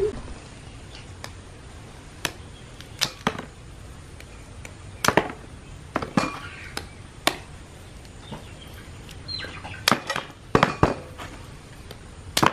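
A large knife chopping through raw cassava (tapioca) roots, cutting them into chunks over a woven bamboo tray: about a dozen sharp chops at uneven intervals, some in quick pairs.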